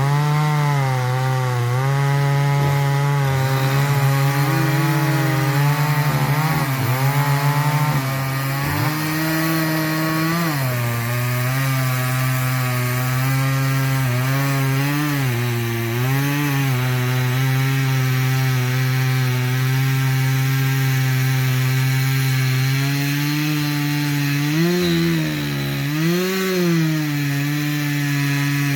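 Chainsaw running at high speed, cutting poplar wood. Its pitch dips briefly several times: about ten seconds in, around fifteen seconds, and twice near the end.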